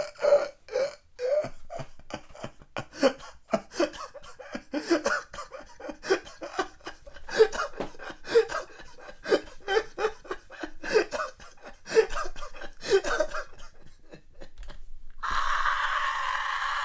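A man laughing hard and long: a run of short, breathy, gasping cackles, several a second, broken by brief pauses. About 15 seconds in the laughter stops and a steady sound with held pitches takes over.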